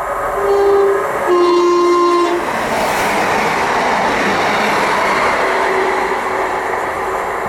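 Two coupled Class 150 Sprinter diesel multiple units sound a two-tone horn: a short higher note, then a longer lower one. The train then runs by with a loud, steady rush of engine and wheel noise.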